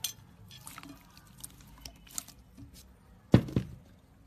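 Jiggly water slime being handled: scattered small clicks and pops, then a louder squish twice in quick succession about three and a half seconds in.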